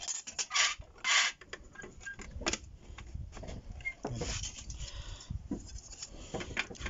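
White plastic parts of a label-printer stand being handled and fitted together on a desk: scattered clicks and knocks of hard plastic, with a short scrape about a second in.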